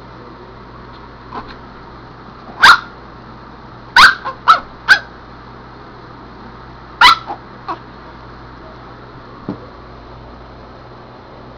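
Chihuahua barking excitedly in short, sharp yips. One comes about two and a half seconds in, a quick run of four follows a second later, then a few more around seven seconds in. Softer single yips come before and after.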